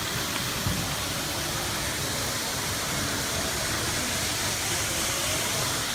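Steady hiss and hum of shop background noise around an N-gauge model-railway layout, with one small click about 0.7 s in.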